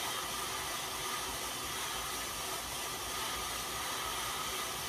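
Steady whirring hiss of a road bike's tyres spinning on indoor cycling rollers as the rider pedals, with a faint steady hum under it.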